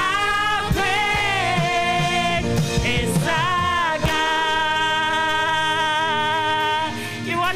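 Gospel praise-and-worship song: a voice singing long held notes over band accompaniment with drum hits.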